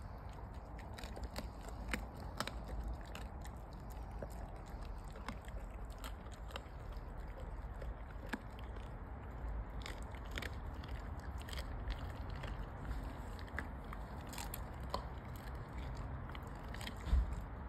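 A German shepherd chewing and biting on a piece of raw chicken, giving irregular wet clicks and crunches. A brief low thump near the end.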